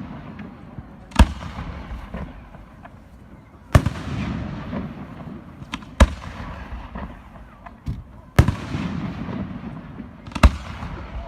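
Fireworks display: five loud aerial shell bursts about two seconds apart. Each bang is followed by a rumble that dies away, and there are a few smaller pops in between.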